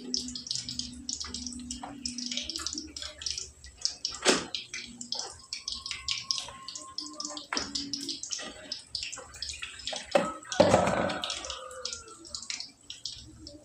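Wet grated coconut being squeezed and worked by hand in a plastic basin, water sloshing, splashing and dripping as the coconut milk is pressed out. A brief louder noise comes about ten and a half seconds in.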